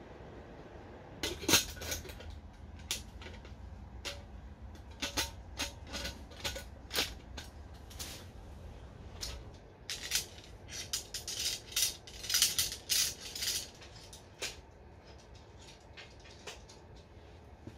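Camping gear being handled and set out: a string of sharp clicks, knocks and light clattering. There is a loud knock just over a second in, and a busier run of rattling clicks in the second half.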